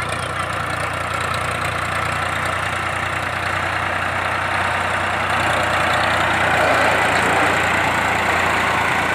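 Powertrac 445DS tractor's diesel engine running steadily under load as it pulls a rotavator through flooded mud. It grows a little louder about six seconds in.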